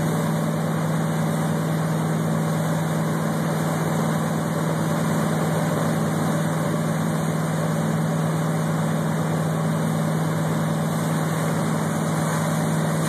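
Wake boat's inboard engine running steadily under way, a constant low drone, mixed with the rush of the churning wake.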